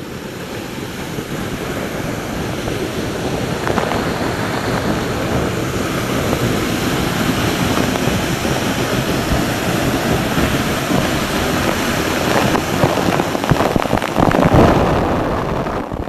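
Sindang Gile waterfall crashing down close up: a dense, steady rush of falling water and spray that grows gradually louder toward the end.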